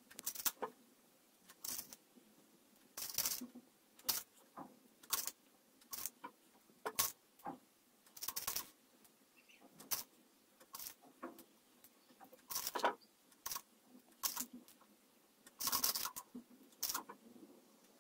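Small plastic Perler beads rattling and clicking as fingers pick through them in a plastic jar and set them onto a plastic pegboard. The clicks come in short, irregular clusters about every second.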